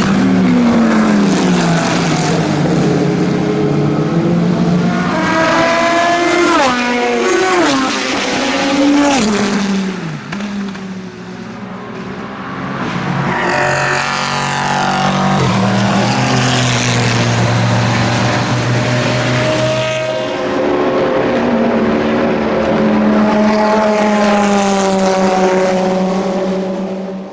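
Racing car engines at full throttle passing on a circuit, among them the Chrysler Viper GTS-R's 8.0-litre V10. Several engine notes climb and break with gear changes, with one note falling steeply about ten seconds in. The sound cuts off at the very end.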